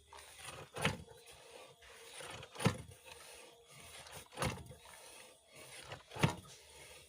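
Manual well drilling: the drill pipe being worked in the bore hole by hand in a steady rhythm, one short rushing stroke about every two seconds, four strokes in all.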